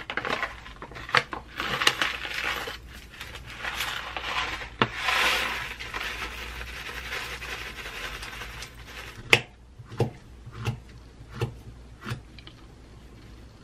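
Granola poured and shaken out of a crinkly plastic bag into a yogurt cup, the bag rustling and crackling. Then a knife slices a banana on the counter, knocking against the surface about six times, roughly one knock every 0.7 s.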